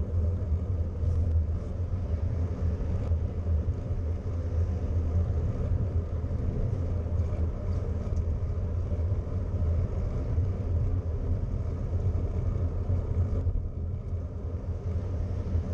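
Steady low rumble of wind buffeting a bicycle-mounted camera's microphone while riding, mixed with tyre and road noise, easing slightly near the end.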